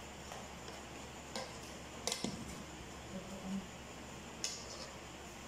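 A few light, sharp clicks of a metal fork against the pot as boiled lasagna noodles are prodded to check they are soft, over a steady low hum.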